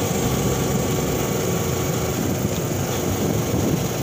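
Motorcycle riding along at road speed: its engine running steadily under a dense rush of road and air noise.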